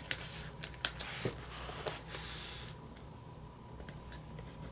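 Planner stickers being handled and placed on paper: a few light clicks and taps in the first three seconds over soft paper rustling, which dies away after about three seconds.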